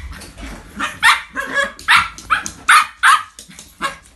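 Dogs play-barking: a run of short, high-pitched barks and yips, about two a second, from a Chinese Crested powderpuff puppy and a Jack Russell terrier playing together.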